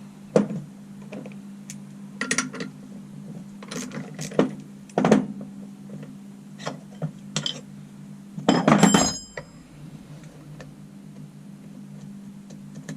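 Scattered metallic clinks and knocks of tools and engine parts being handled on a workbench, with a louder clatter and ring about eight and a half seconds in, over a steady low hum.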